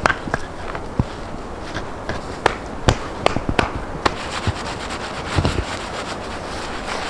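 Stones knocking and scraping against each other as they are handled and fitted into a dry stone wall: a run of sharp clacks through the first few seconds, then mostly rough scraping.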